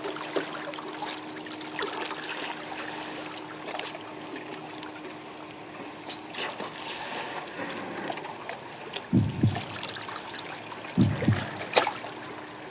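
Small waves lapping and trickling at the water's edge, with a few dull low thumps about nine and eleven seconds in.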